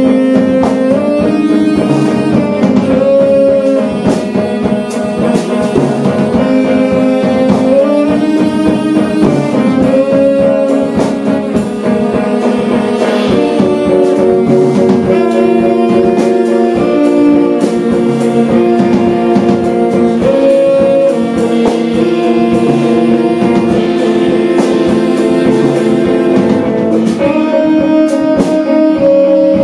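Live jazz quartet: tenor saxophone playing a slow line of long held notes over bowed cello, guitar and a drum kit with frequent cymbal strokes.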